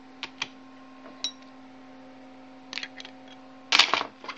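Sharp metallic clicks as a hard-drive neodymium magnet in its steel bracket is handled, then a louder clatter just before four seconds as it is set down on a laptop keyboard. A steady low hum runs underneath.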